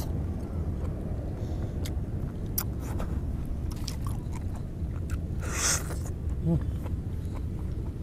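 Close-miked eating of juicy orange segments: wet chewing, sucking and smacking clicks, with one loud sucking slurp about five and a half seconds in. A steady low rumble runs beneath.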